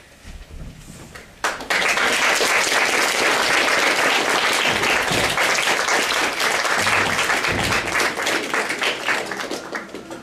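Audience applauding, starting suddenly about a second and a half in and thinning out near the end.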